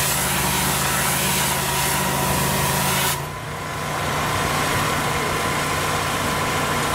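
Pressure washer running: the twin-headed turbo lance hisses as it sprays block paving, over the steady drone of the machine's engine. About three seconds in the spray hiss stops and the engine keeps running.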